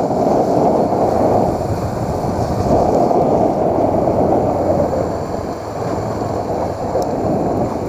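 Steady rush of wind on the microphone of a motorcycle being ridden along a street, with the bike's engine running underneath.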